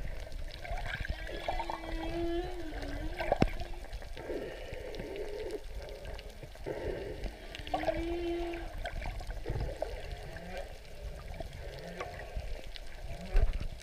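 Humpback whale song heard underwater: a series of long moans and held tones, higher cries, and short rising whoops in the latter part, over the hiss of the water. Two thumps, about three seconds in and near the end.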